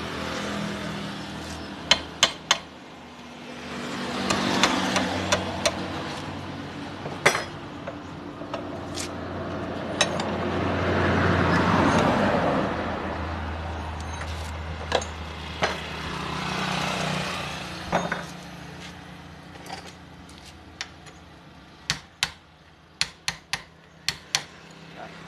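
Sharp metal clinks and taps of hand tools against a starter motor's steel field-coil housing held in a bench vise, coming in scattered bursts with a quick run of taps near the end. A low motor drone swells and fades a few times behind them.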